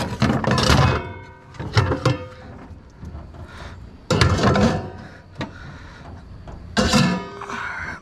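Items being moved around and dropped in a dumpster: a series of irregular thumps and clatters, some with a brief ring.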